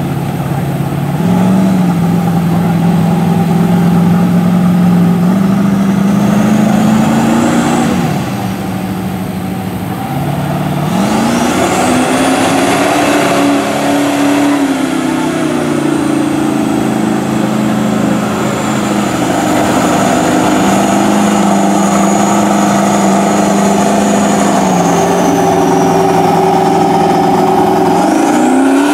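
Mud truck on big tractor-tread tires, its engine revving as it ploughs through a flooded mud pit. The pitch climbs about a second in and again around six to eight seconds, drops, then climbs hard to its highest point around eleven to fourteen seconds, holds lower for a while, and rises again near the end. A thin high whine follows the revs.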